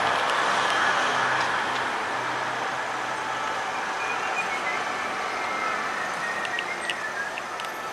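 City street traffic noise: a steady wash of passing vehicles with a low engine hum in the first few seconds, then a few faint clicks and short high chirps near the end.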